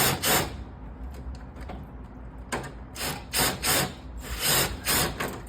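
Ratchet wrench with a socket clicking in short back-and-forth strokes while driving a screw: two strokes at the start, then a run of about six from about two and a half seconds in.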